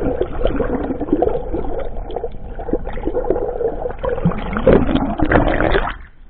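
Muffled water noise from a camera held underwater in the sea: a steady rushing and gurgling with many small clicks. It cuts off suddenly about six seconds in, as the camera comes out of the water.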